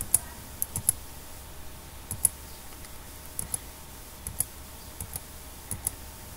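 Computer keyboard keys clicking in irregular pairs and short clusters, roughly once a second, as a document is paged through on screen; a faint steady hum lies underneath.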